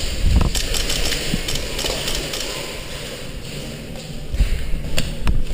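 Rumbling handling noise from a body-worn camera as an airsoft player moves, with a few scattered sharp clicks and knocks.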